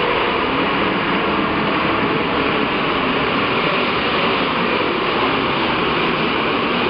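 Loud, steady engine noise of a pulling tractor running under load, heard across the arena.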